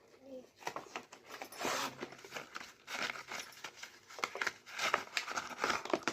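Packaging being handled and opened: irregular crinkling and tearing rustles with small clicks and scrapes.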